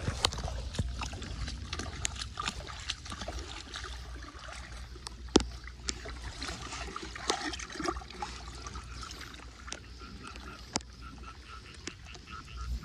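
Shallow floodwater splashing and trickling around a clogged street storm drain as leaves and sticks are pulled out of it, with scattered small clicks and knocks.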